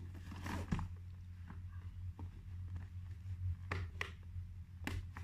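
Clear plastic shrink wrap on a cardboard box being slit with a small knife and handled: scattered short crinkles and scrapes over a steady low hum.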